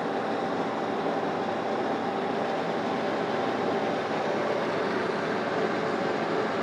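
Metal lathe running steadily with a single-point tool taking a light facing cut across the end of a cast iron vise tube held in the three-jaw chuck: an even machine hum with a few steady tones.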